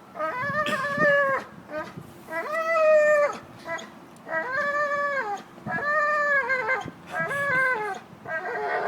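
American bulldog whining in a series of about six long, drawn-out cries, each about a second, the pitch arching and dropping at the end of each, as she plays on the vine.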